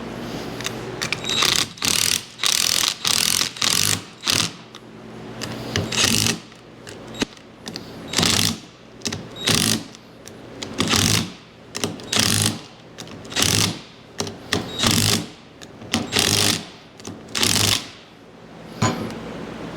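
A power driver run in about fourteen short bursts of half a second or so, with brief pauses between, as bolts are run in and snugged on a hydraulic pump's housing.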